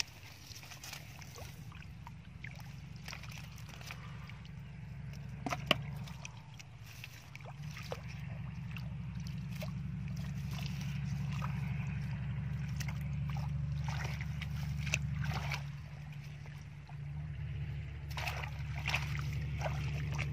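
Hands and feet sloshing and splashing in shallow muddy water, with scattered short splashes, a sharp one about six seconds in and several near the end, over a steady low rumble.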